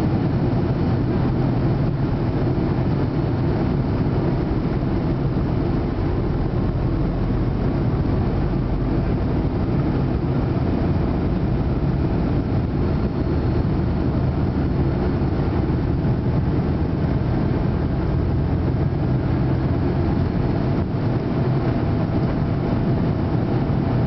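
Inside the cabin of an Avro RJ85, the steady, loud drone and rush of its four Honeywell LF507 turbofans and the airflow at take-off power, as the jet takes off.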